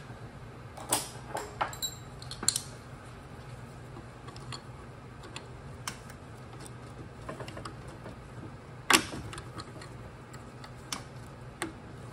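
Irregular metallic clicks and taps of a hand tool working at the locking tabs of a crud-covered set nut on a Toyota AB60E transmission case, with a sharper knock about nine seconds in. A low steady hum runs underneath.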